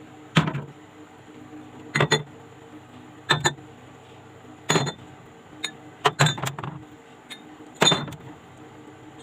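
Glass bottles knocking and clinking together as they are set into a fridge, about six separate clinks, some as quick doubles, spaced a second or so apart.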